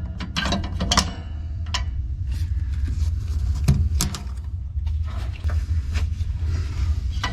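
Scattered small clicks and knocks of a screwdriver and metal parts being handled as a furnace flame sensor is unscrewed and pulled out, over a steady low hum.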